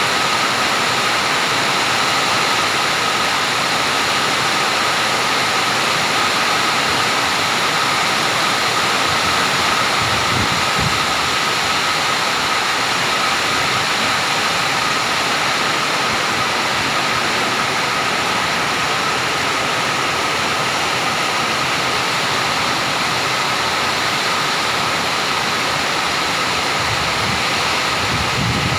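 Storm rain and wind, a loud steady rushing hiss with no letup.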